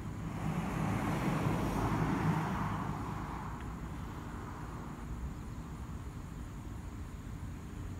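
A road vehicle passing by, its tyre and engine noise swelling and then fading away within the first three and a half seconds, leaving a steady low rumble of background noise.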